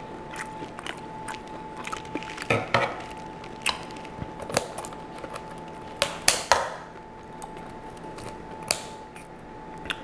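Kitchen shears cutting through the thick shell of a giant boiled lobster claw: scattered sharp snips and cracks, the loudest crunches about two and a half, six and a half and nearly nine seconds in.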